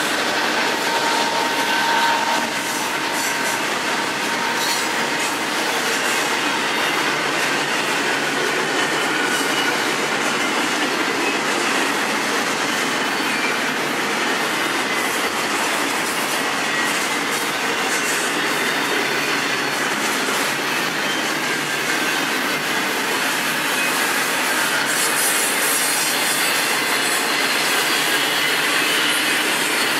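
Double-stack container train passing close by: the steady rolling noise of steel wheels on rail as the well cars go past, with faint high squeals from the wheels now and then.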